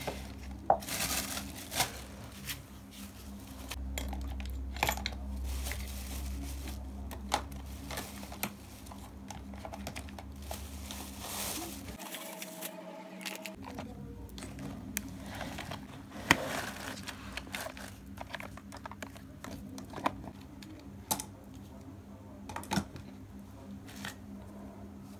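Handling noises: rustling and crinkling with scattered light knocks and clicks as a plastic basket of toiletry bottles is slid out and a crocheted tablecloth is moved about. A steady low hum runs underneath.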